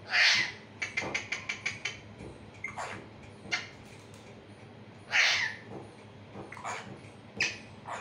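Alexandrine parakeet giving harsh screeching calls: two long, loud ones just after the start and about five seconds in, with shorter squawks between. A rapid run of clicks comes about a second in.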